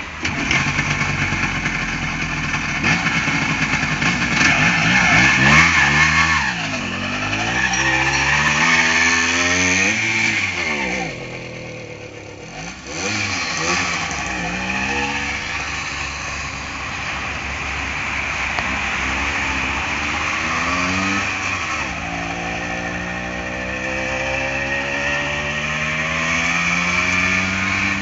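Ice-cream moped's engine running and revving up and down over and over, with a quieter dip about eleven seconds in and a slow steady climb in revs near the end.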